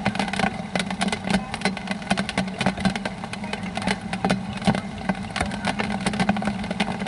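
Raindrops pattering on an umbrella close to the microphone: dense, irregular sharp taps over a steady low hum.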